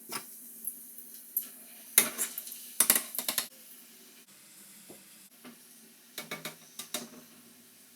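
Utensil scraping and clinking in a bowl as chopped onion, tomato, coriander and chilli are worked into a paste, in scattered bursts of clicks and scrapes. A faint steady hum runs underneath.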